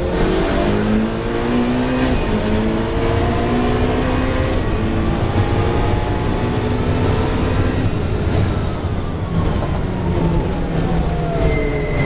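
Ferrari 488 Challenge race car's twin-turbo V8 accelerating hard through the gears, its pitch climbing and dropping sharply at upshifts about two and four and a half seconds in. After about eight seconds the pitch falls steadily as the car slows.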